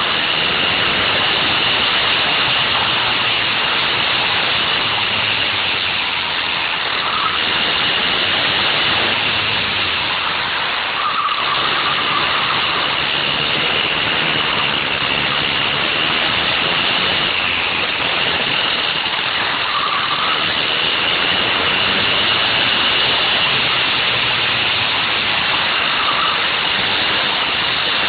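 Go-kart's Wankel rotary engine running under load on board, with a steady high-pitched whine over a dense rush of noise; the low engine note wavers up and down through the lap.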